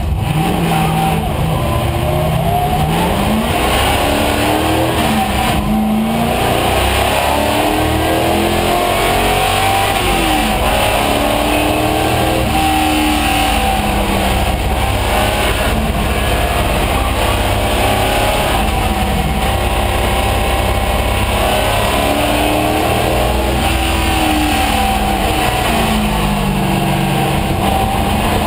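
1974 AMC Javelin AMX race car's V8 engine, heard from inside the stripped cockpit, run hard around a road course. It is loud throughout, with the engine pitch climbing and dropping back again and again as the car accelerates, shifts and brakes.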